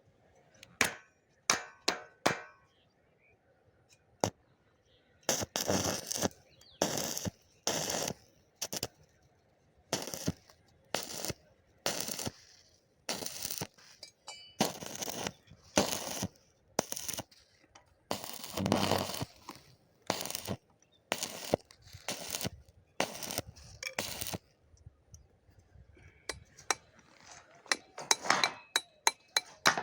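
Welding work on steel pipe pieces: a run of short, harsh bursts, roughly one a second, with a few sharp clicks near the start.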